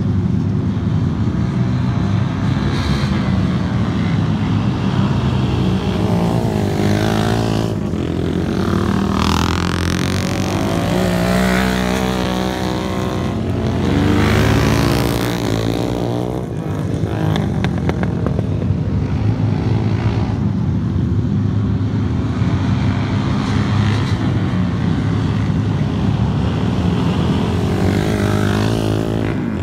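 Vintage dirt-track racing motorcycles running laps of a dirt oval, several engines at once. The engine pitch rises and falls as bikes pass, and it is loudest about halfway through.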